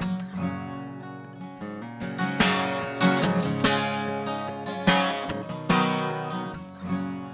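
Acoustic guitar strumming chords, each strum ringing out and fading before the next, in an instrumental break between sung lines.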